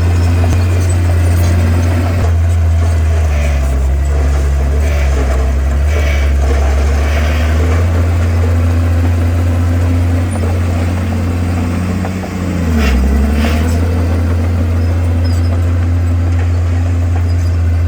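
Heavy diesel engine of a Komatsu bulldozer running steadily at work, its note dipping briefly about twelve seconds in and then recovering, with short bursts of crackling noise over it.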